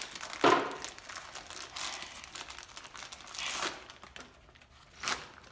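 Plastic packaging crinkling in several short rustling bursts as a new fuel pump is unwrapped by hand.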